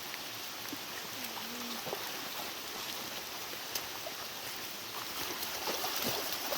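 Steady rushing of running creek water in the rain, an even hiss with a few faint ticks.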